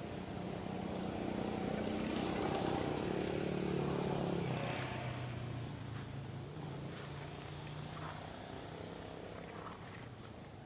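A passing motor vehicle engine that swells over the first few seconds, drops in pitch and then fades away slowly.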